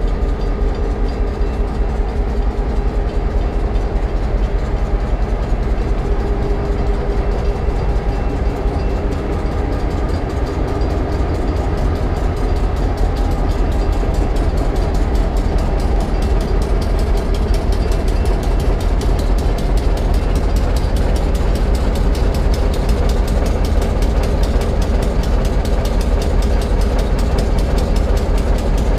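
Passenger train's engines running close by: a steady, loud low rumble with a held hum that does not change.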